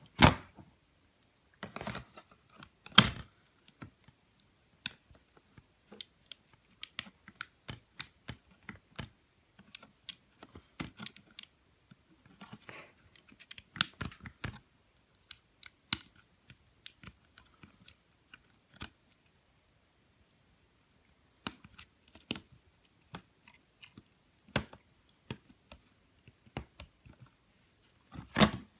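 Irregular small clicks and taps of hands handling an opened tablet and its plastic parts, with louder knocks near the start and about three seconds in.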